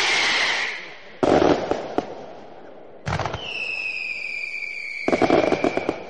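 Consumer fireworks going off: a spark fountain's hiss with a whistle dies away within the first second, then a sudden crackling burst follows. About three seconds in a long whistle starts, sliding slowly down in pitch, and near the end a rapid string of crackling pops from aerial shots breaks in.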